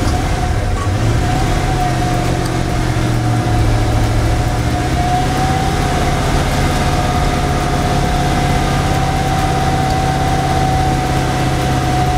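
Old Ford pickup truck's engine running steadily, just brought back to life after sitting unused for over a decade. A steady high whine runs over the engine note.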